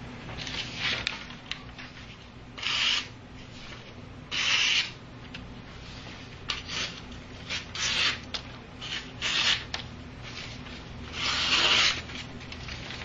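Knife blade being hand-sharpened: about ten separate rasping strokes of an abrasive stone along the steel, irregularly spaced, with the longest and loudest stroke near the end.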